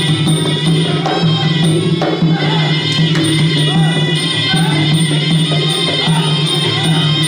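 Traditional Kun Khmer fight music playing continuously: a gliding reed-oboe melody over drums, with small hand cymbals keeping a steady, fast beat.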